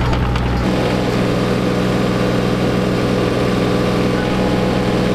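Diesel engine of a Kubota U27-4 mini excavator running steadily while it holds a concrete block on its lifting straps.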